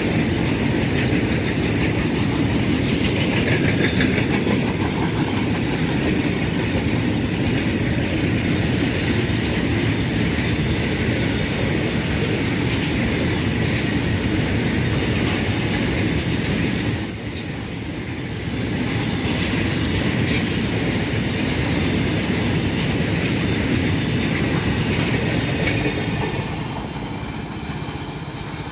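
A long freight train of petroleum tank wagons rolling past: a steady rumble with a rapid clatter of wheels on the rails. It fades near the end as the last vehicle passes and the train draws away.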